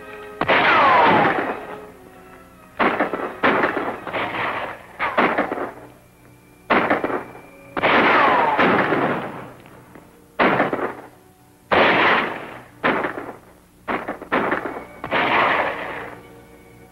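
A gunfight of about a dozen gunshots, fired singly and in quick pairs, each with a long echoing tail. Near the start and again about eight seconds in, a shot carries a falling ricochet whine.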